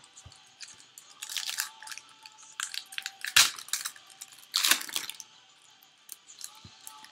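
Foil wrapper of a trading card pack crinkling and tearing as it is handled and pulled open, in irregular crackly bursts. The loudest come about three and a half and five seconds in.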